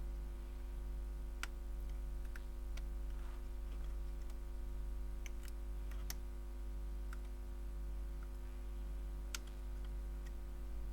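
Small metal tools clicking against a phone's tiny charging connector as it is worked loose, a few sharp isolated ticks spread irregularly through, over a steady electrical hum.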